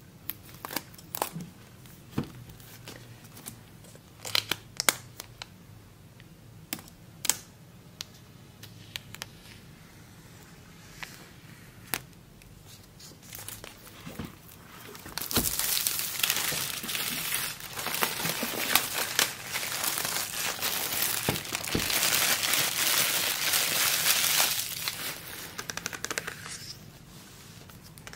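Plastic shrink wrap being peeled off an iPad Air box. First come scattered sharp crinkles and ticks as fingers work at the film. About halfway through there is roughly ten seconds of continuous crinkling and tearing as the wrap is pulled away, which stops a couple of seconds before the end.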